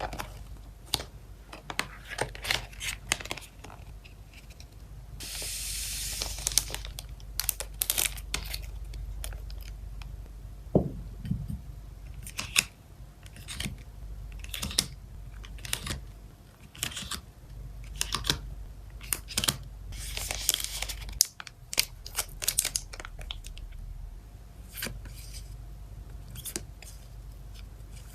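Photocard packing sounds: plastic card sleeves and packaging handled close up, with many light clicks and taps and two longer tearing, rustling stretches, one early and one later on. A brief falling squeak sounds near the middle.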